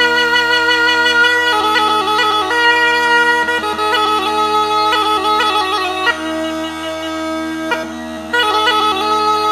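Bulgarian bagpipe (gaida) playing a fast, ornamented folk melody over a steady drone. The melody drops lower and softer about six seconds in, then comes back louder near the end.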